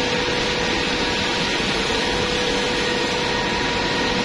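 Gas burner's combustion-air blower running steadily during the pre-purge before ignition: an even whir with a constant mid-pitched tone through it.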